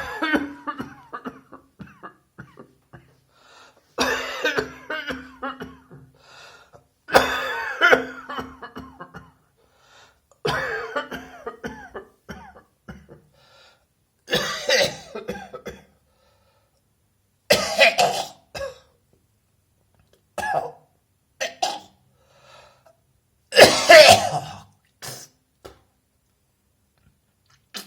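A person coughing in repeated fits, about eight bouts a few seconds apart with short pauses between them.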